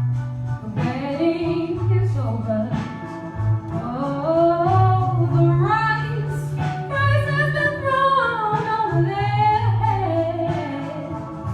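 A female singer sings a soulful melody with wide vibrato on long held notes. Under her runs an instrumental accompaniment with a steady bass line.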